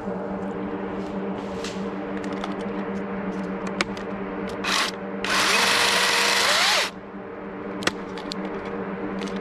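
Dewalt 60V top-handle battery chainsaw briefly run into a cut: a short burst, then the motor spins up with a rising whine and cuts wood loudly for about a second and a half before stopping suddenly, as the bar gets pinched in the cut. A steady low hum and scattered small clicks run underneath.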